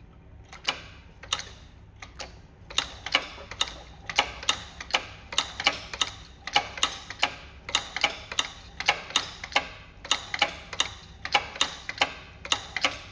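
Ratchet wrench clicking in quick repeated strokes, about three sharp clicks a second, as bolts are run down on the engine's rear timing covers.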